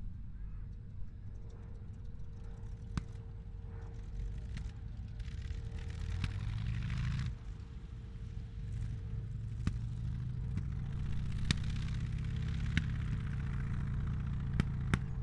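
Sherman tank engine running with a low rumble that swells about six seconds in and again for the last few seconds. Several sharp, distant cracks of blank gunfire are scattered through it, and a steady high hum runs underneath.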